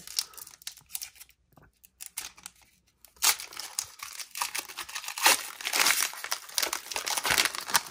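Crinkly foil wrapper of an Upper Deck Series 1 hockey card pack being torn open and crumpled. A few light rustles and ticks come first, then dense crackling starts about three seconds in.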